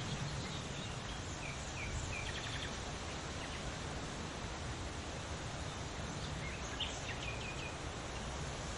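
Leaves rustling in the wind as a steady hiss, with small songbirds chirping in short runs of quick notes, about two seconds in and again about seven seconds in.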